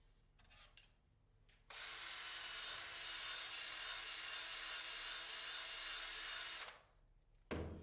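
Small power tool running steadily for about five seconds, abrading the car air-conditioning line's aluminium fitting clean before soldering, then a short thump near the end.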